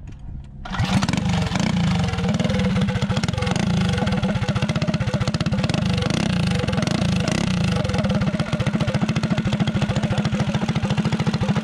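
Predator 223 mini bike engine with a 275 cam, pull-started: it catches about a second in, then runs steadily through its open pipe exhaust.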